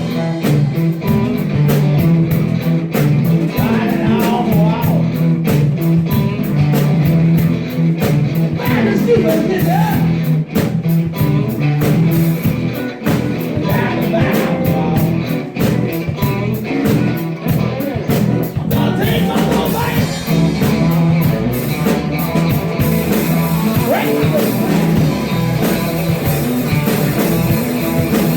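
Live blues-rock band playing: guitar over a steady bass line and drums.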